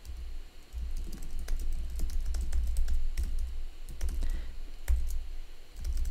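Typing on a computer keyboard: a steady run of irregular keystroke clicks, each with a low thud.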